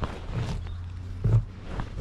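Knocks and rustling from a camera mounted on a cow's head as the cow moves and grazes in the grass. A low steady hum lasts for about a second in the middle.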